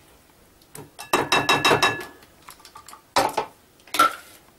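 A blender jar knocked rapidly against the rim of a glass bowl to shake out ground onion, the glass ringing, followed by two single knocks.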